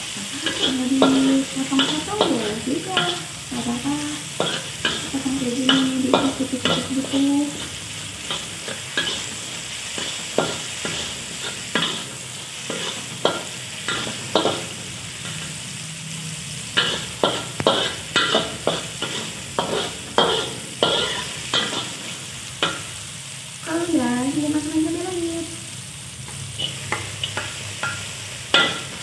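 Chopped shallots, garlic, tomato and chilies sizzling in hot oil in a wok while a metal spatula scrapes and taps against the pan in quick, uneven strokes. The strokes come thicker in the second half.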